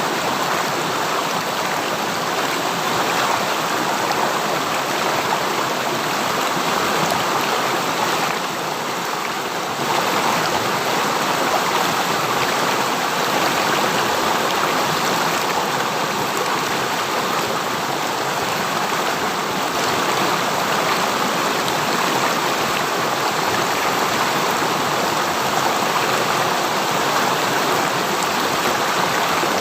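River stream rushing and splashing steadily, an even water noise, briefly a little softer about eight seconds in.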